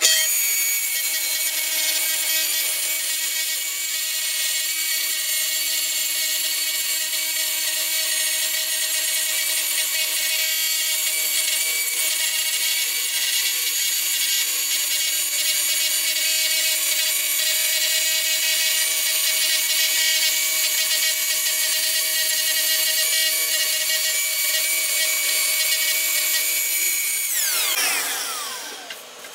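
Festool TS 75 track saw ripping a black walnut slab lengthwise along its guide rail, a steady high whine of motor and blade in the wood. It starts abruptly, and near the end the saw is switched off and winds down, its pitch falling.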